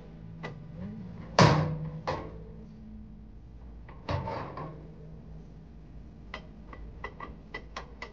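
A few loud metal clanks against the under-step storage box, then a ratchet wrench clicking in short irregular runs as a lock nut is tightened on a mounting bolt.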